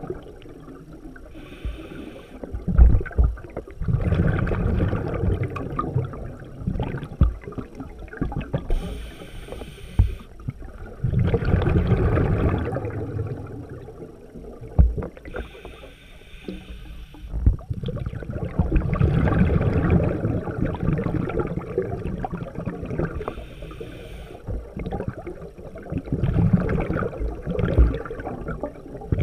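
Scuba diver breathing through a regulator underwater: a short hiss of inhalation followed by a longer gush of exhaled bubbles, repeating about every seven seconds.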